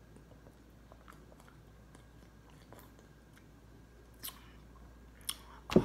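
A person drinking from a bottle: faint mouth clicks, sips and swallows. A short loud thump comes near the end.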